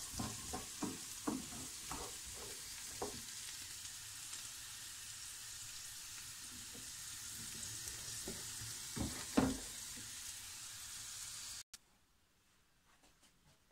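Boiled chickpeas frying in sunflower oil in a pan: a steady sizzle, with a wooden spoon stirring and knocking against the pan in the first few seconds and one louder knock about nine seconds in. The sizzle cuts off abruptly near the end.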